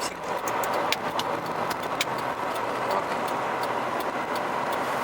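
Car driving, heard from inside the cabin: steady road and engine noise, with scattered sharp clicks.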